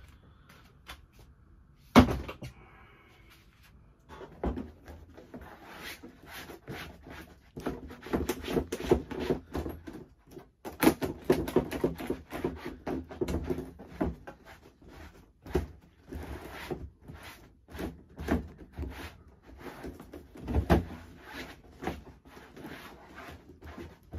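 Household items being handled, shifted and wiped down with a cloth while cleaning. One sharp knock comes about two seconds in, followed by a long run of clicks, light clatters and rubbing.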